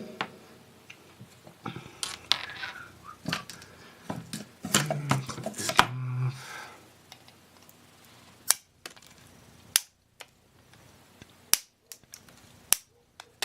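Scattered sharp clicks and knocks, with short stretches of rustling and clatter, from small parts and tools being handled on a workbench.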